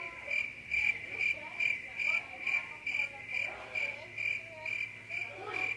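Crickets chirping in an even, high-pitched pulse, about two to three chirps a second. This is the comic 'awkward silence' sound effect, cut in with abrupt starts and stops.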